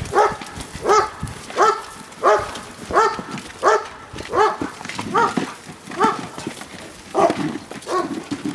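A dog barking over and over at an even pace, about three short barks every two seconds, a dozen in all.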